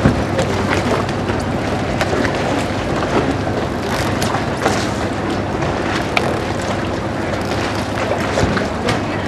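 Motorboat engine running steadily on the water, with a low hum under a wash of water and wind noise and scattered sharp clicks and knocks.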